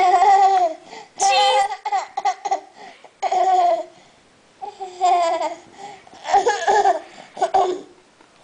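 A 13-month-old baby boy babbling and laughing in about half a dozen short, high-pitched vocal bursts.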